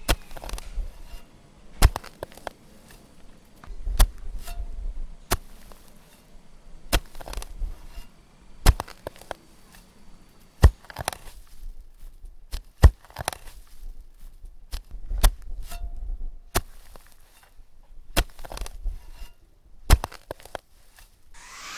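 A series of sharp knocks or chops, about one every one to two seconds, with low rumbling noise between them.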